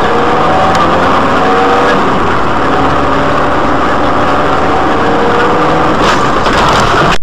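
Steady engine and road noise of a car driving, recorded from inside the cabin by a dashcam, a loud even rush.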